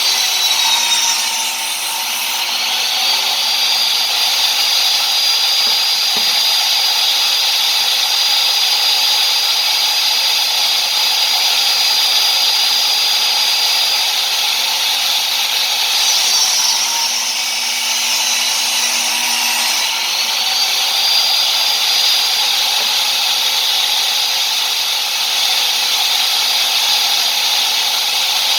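Table saw running and cutting a board to square its end. The steady high whine drops in pitch and recovers twice, once just after the start and again about two-thirds in, as the blade bogs in the wood.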